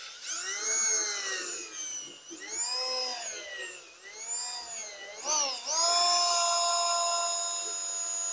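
Handheld electric drill boring a small pilot hole in a scrap-wood block. Its motor whine rises and falls several times as the trigger is squeezed and eased, then runs at a steady high speed from about six seconds in.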